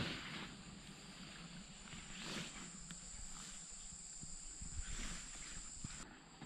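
Ambience in a bamboo forest: a steady high-pitched insect drone with soft swells of rustling, the drone cutting off about six seconds in.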